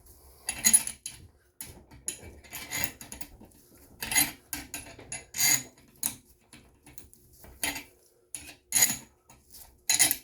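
Half-inch wrench clicking and clinking in short metallic bursts, about one every second or so, as the nut on a toilet tank bolt is tightened against the rubber washers.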